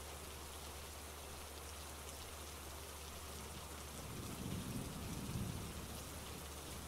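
Steady rain falling, with a low rumble of thunder swelling about four seconds in and fading before the end.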